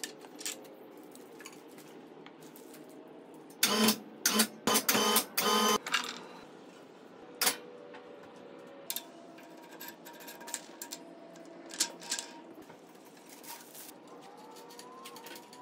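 Clatter of parts and tools while a drum sander is assembled: a quick series of short, loud mechanical bursts a little before the middle, then scattered clicks and knocks.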